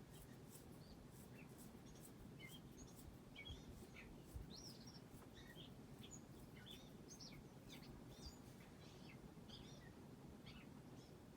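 Faint chirping of small birds, many short high calls scattered throughout, over a low steady hum from a Hunter Original ceiling fan running at medium speed, which otherwise makes almost no noise.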